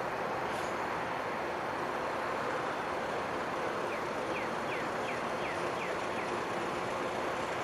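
Steady engine and road noise of vintage cars, without the rise and fall of a single car passing. About four seconds in, a run of about seven short high chirps follows, some two to three a second.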